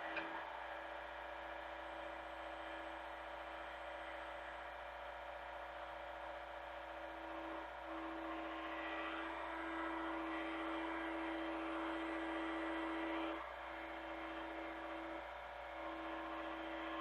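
Hitachi mini excavator's diesel engine running steadily under work load. It grows louder from about eight seconds in and eases briefly twice near the end as the load changes.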